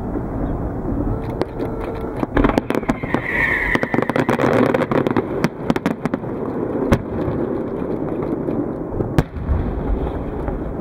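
Fireworks display: a continuous rumble of bursting shells, with a dense volley of sharp bangs and crackles from about two to five seconds in, then two single loud bangs later on.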